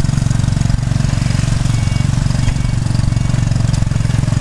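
Small motorbike engine running steadily close by, with a fast, even low putter.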